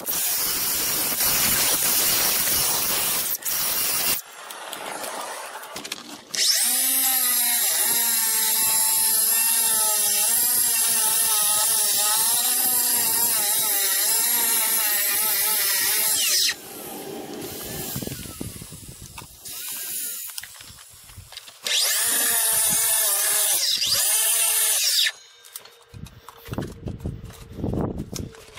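Cordless DeWalt FlexVolt 60V cut-off saw cutting cultured stone, in three runs: a short one at the start, a long one of about ten seconds from about six seconds in, and a short one near the end. The motor's whine wavers in pitch as the blade loads up in the stone, and it drops away quickly between cuts.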